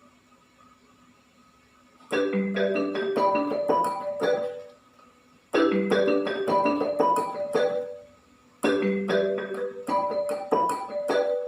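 A ringtone melody played on a Roland XPS-10 keyboard. The same short phrase of quick notes is played three times, each about two and a half seconds long with short pauses between, starting about two seconds in.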